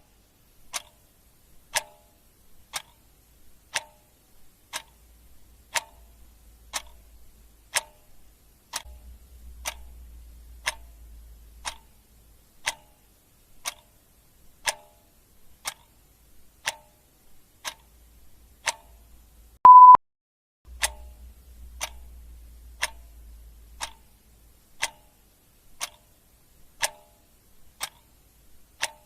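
Clock ticking steadily, one tick a second, with a single short, loud beep about twenty seconds in.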